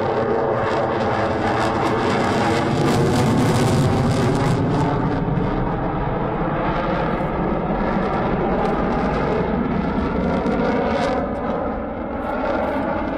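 Su-30SM fighter jet flying overhead: the steady rushing noise of its twin AL-31FP turbofan engines, loudest about three to four seconds in and dipping briefly near the end.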